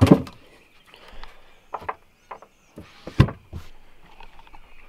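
Several knocks and thuds from a bass boat's storage hatch lids being handled, the loudest right at the start and another strong one about three seconds in.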